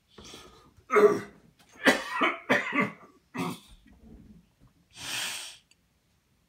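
A person coughing in a short fit: about six coughs in the first three and a half seconds, the first the loudest. About five seconds in comes a single breathy rush of air.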